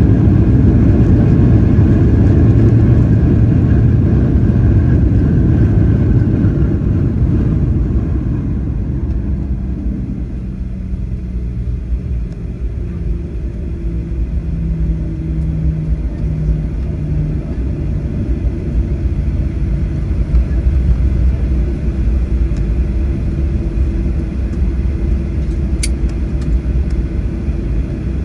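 Inside the cabin of a Boeing 737-800 rolling out on the runway after landing: a loud low rumble of the engines and the wheels that dies down over the first ten seconds as the jet slows, then settles into a quieter, steady rumble at taxi speed.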